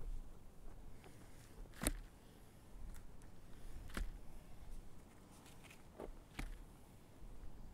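Dry turf sods being handled and stacked: soft scrapes and rustles of sod against sod, with a few sharp knocks about two, four and six seconds in as pieces are set down.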